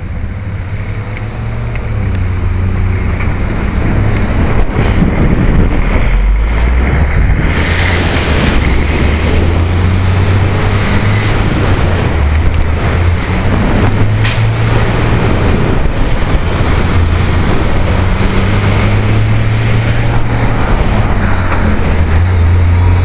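Wind and road noise on a bicycle-mounted camera while riding, over the low, steady drone of a heavy truck's diesel engine that steps up and down in pitch as it shifts.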